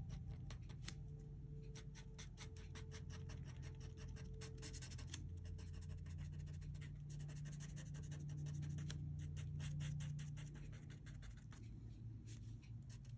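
Paper tortillon (blending stump) rubbing over graphite shading on a paper drawing tile, blending it in many short, faint scratchy strokes.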